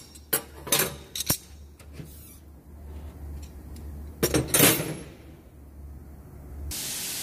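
Steel open-end wrenches clinking against the metal top of a wheel alignment console. There are a few sharp clinks in the first two seconds and a louder clatter about four and a half seconds in, over a low steady hum. Near the end a hiss starts and the hum cuts off.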